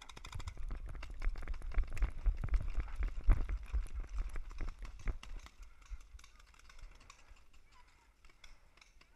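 Quick footsteps of a paintball player running across grass, with gear rattling and knocking and a low rumble on the head-mounted camera. The sound eases off after about five seconds, when he settles behind a bunker, leaving scattered light clicks.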